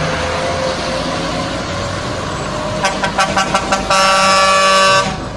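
Heavy trucks running. Then a truck air horn gives a rapid string of short toots, followed by one long blast of about a second.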